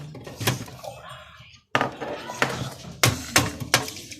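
Repeated sharp knocks and clatter of desktop computer parts being handled and set down while the machine is taken apart, the power supply coming out. The sound drops out briefly about a second and a half in.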